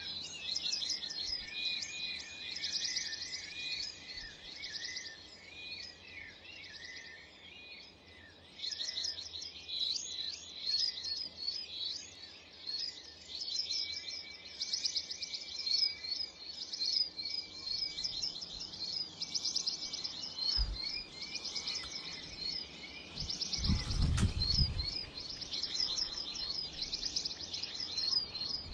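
Several small garden songbirds chirp and twitter continuously in rapid, overlapping high calls and trills. A low thud comes about twenty seconds in, and a short low rumble with a knock follows a few seconds later.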